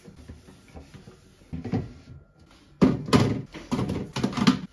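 Plastic food containers being set down and shifted on fridge shelves: a single knock about halfway through, then a run of knocks and clatter near the end.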